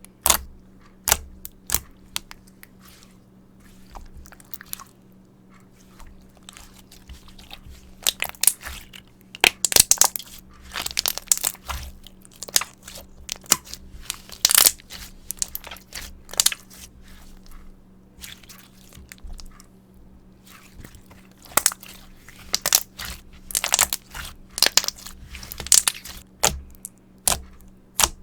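Mirror slime being worked by hand, giving bursts of sharp clicking pops from trapped air. There are quieter spells a few seconds in and again a little past the middle. A faint steady low hum runs underneath.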